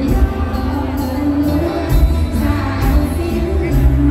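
Live mor lam band music played loud through a concert sound system: a heavy bass line and a steady drum beat under a singer.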